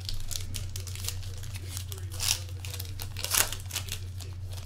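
Foil wrapper of a trading-card pack being torn open and crinkled by hand, a run of sharp crackles with two louder rips, a little past two seconds in and again about a second later.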